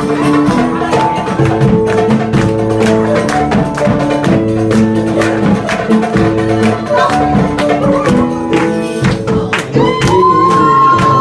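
Live music on an electronic keyboard: held melody notes over a quick, steady percussion beat. A voice sings over it near the end.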